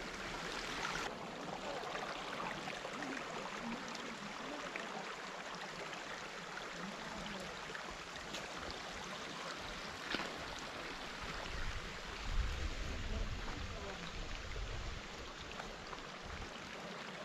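Faint, steady outdoor background hiss by a mountain lake, with a soft click about ten seconds in and a low rumble a couple of seconds later.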